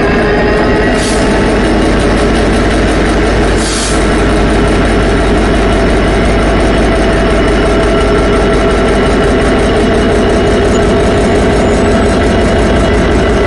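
Diesel locomotive engine running steadily and loud, a deep even drone. Two short hisses cut in, about a second in and again near four seconds.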